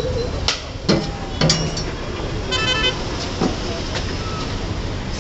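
Steel ladle and bowl clinking against a large aluminium pot as biryani is scooped out, a few sharp clinks, over a steady rumble of street traffic with a short, stuttering horn toot about two and a half seconds in.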